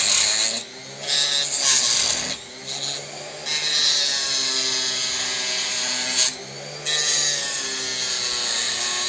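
Small handheld rotary tool with a cutting wheel cutting into plastic. Its high whine sags in pitch as the wheel bites and rises again as it frees up. It runs in several stretches, with three short breaks between the cuts.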